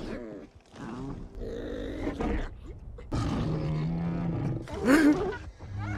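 Cartoon ape vocal sound effects: a run of short pitched grunts and calls, a longer steady low call a little after three seconds in, and a louder rising call about five seconds in.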